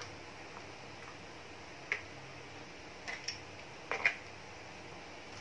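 Plastic lids clicking into place on the cups of a plastic popsicle mould: a few sharp clicks, one about two seconds in, a pair just after three seconds, and the loudest pair about four seconds in.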